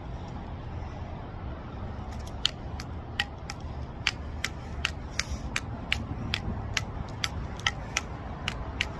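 Higgins Brothers devil stick being struck back and forth by hand sticks: sharp ringing clicks at about two to three a second, starting about two seconds in, over a steady low rumble.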